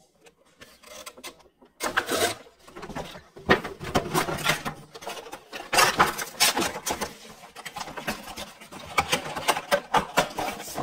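Rigid clear plastic gift-set packaging and its cardboard box being handled and pulled apart, starting about two seconds in: a dense run of crackling and clicking plastic with scraping card.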